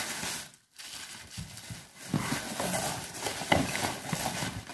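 Plastic packaging wrap crinkling and rustling as it is handled and pulled from a cardboard box, with a few sharp clicks and knocks. It drops out briefly about half a second in.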